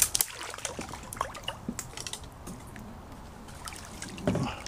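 Water dripping and trickling around a kayak, with a string of sharp clicks and snaps as mangrove branches are gripped and pulled; a louder dull thump near the end.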